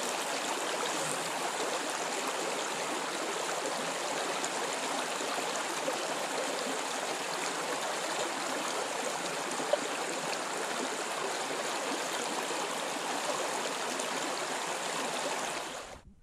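River water flowing in a steady, continuous rush, with one brief click about ten seconds in; the sound cuts off abruptly just before the end.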